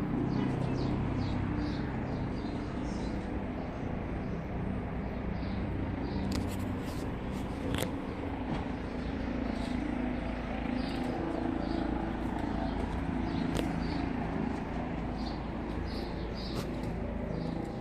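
Steady outdoor rumble of distant traffic, with small birds chirping in short repeated bursts throughout.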